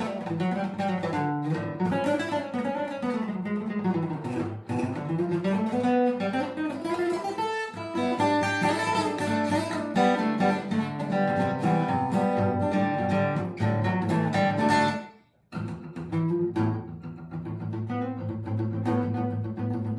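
Acoustic guitar music, strummed and picked, with a brief break about three-quarters of the way through before the playing picks up again.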